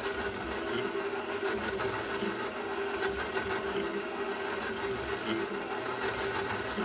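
Bowl-lift KitchenAid stand mixer running steadily, its flat beater turning in an empty stainless steel bowl, with a few light clicks as the beater pushes a dime across the bowl bottom. The beater is set too low, with too little clearance to the bowl.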